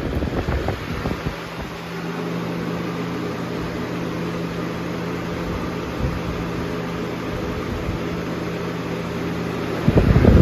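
A 2001 Lasko 3780 box fan running on its high setting: a steady motor hum under a rush of air. A loud low rumble comes near the end.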